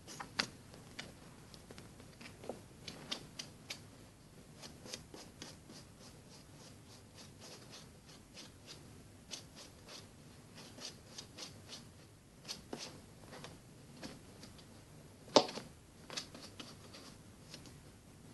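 A cat shifting about and settling on a fabric chair cushion: soft, irregular clicks and scratches, with one sharper click about fifteen seconds in.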